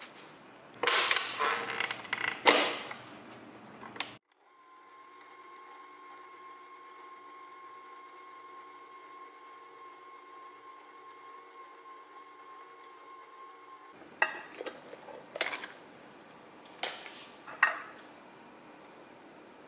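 A burst of loud clattering knocks in the first few seconds. Then a stand mixer's motor hums steadily for about ten seconds, mixing dough with its dough hook. A few sharp clicks and knocks come near the end.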